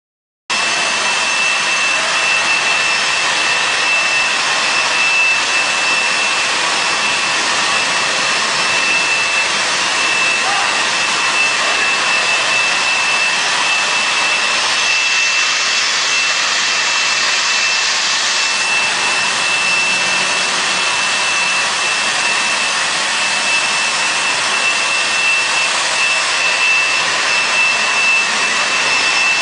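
Industrial rug-washing machine running with its rotary brushes turning: a steady, loud hissing rush with a constant high whine through it, starting abruptly just after the start.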